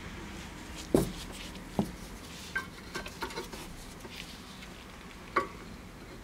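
Metal-backed disc brake pads handled in gloved hands: scattered light clicks and knocks of the pads against each other and the caliper bracket, the sharpest about a second in and again a little past five seconds.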